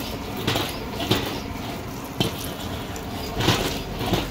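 Eggs frying in hot oil in an iron wok over a gas burner, a steady sizzle, with a metal ladle clinking and scraping against the wok several times.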